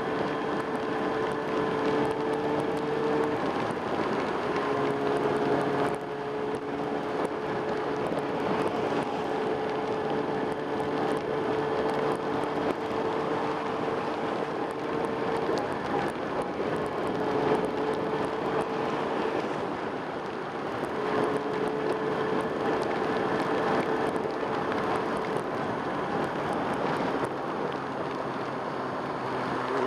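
1995 Kawasaki Ninja ZX-6R's inline-four engine running at a steady road speed under heavy wind and road noise. Its tone holds steady, then breaks or shifts pitch a few times.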